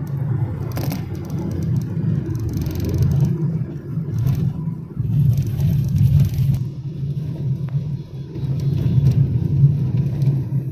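Vehicle driving at speed, heard from inside the cabin: a steady low rumble of road, engine and wind noise that swells and dips irregularly.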